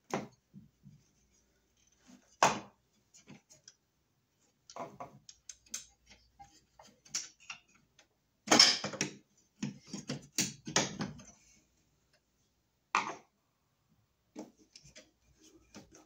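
Irregular clicks and knocks, a few sharper than the rest, as a deeper surface-mount switch box is fitted onto the wall by hand.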